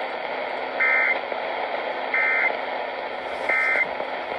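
Three short Emergency Alert System data bursts, each about a third of a second and about 1.4 s apart: the end-of-message signal that closes an alert. They sound over a steady radio static hiss.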